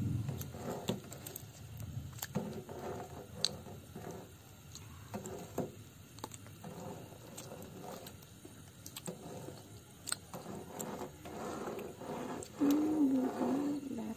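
A ladle stirring gelatin mixture in a metal pot, with scattered light clicks and scrapes against the pot. Near the end a brief wavering low call or hum sounds over it.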